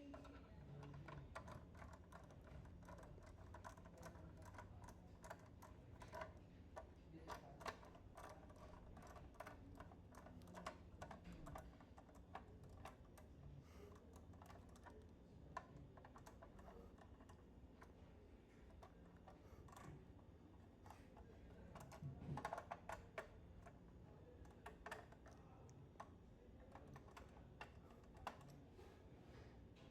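Faint, irregular light clicks and taps, sometimes several a second, over a low steady hum.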